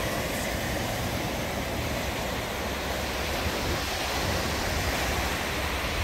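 Small waves breaking on a sandy beach: a steady, unbroken wash of surf.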